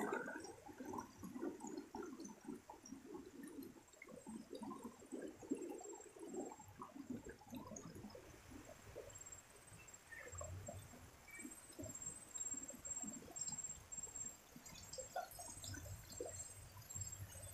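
Faint rush and gurgle of a fast-flowing river running over rocks, busiest in the first half.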